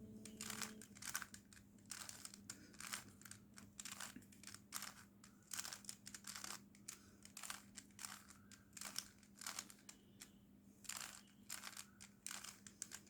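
Faint plastic clicks and rattles of a 3x3 Rubik's Cube's layers being twisted by hand, a quick, irregular run of two or three turns a second, over a faint steady hum.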